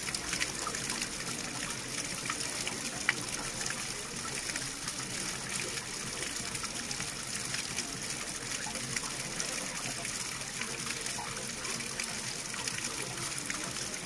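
Water flowing steadily with a trickling, gushing sound, and a single sharp click about three seconds in.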